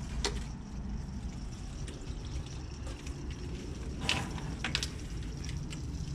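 Water with trapped air trickling and gurgling through the hydronic snowmelt loops and brass manifold while the circulation runs, over a steady low hum, with a few sharp clicks, the strongest about four seconds in. The air is still in the lines because the loops have not yet been fully bled.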